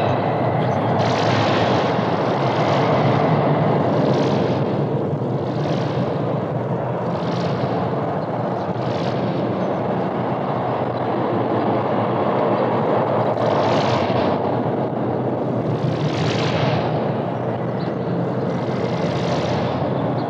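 Dense, steady noise from an experimental noise cassette track, with hissy swells rising and fading every second or two.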